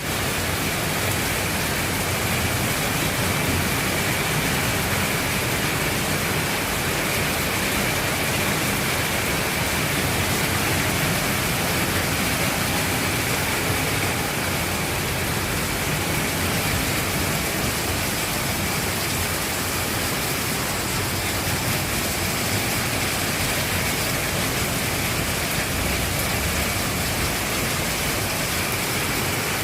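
Heavy rain pouring steadily in a thunderstorm downpour, an even hiss with no distinct claps or breaks.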